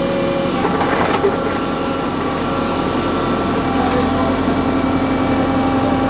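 Diesel engine of a JCB 3CX backhoe loader running steadily, with a brief knock about a second in.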